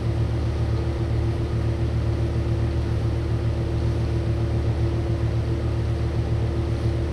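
Steady low mechanical hum with a constant faint tone over it, unchanging throughout.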